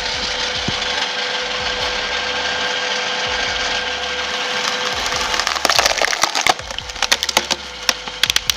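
Log splitter running with a steady hum as it pushes into a log. From a little past halfway the wood gives way in a quick, irregular run of sharp cracks and splintering snaps.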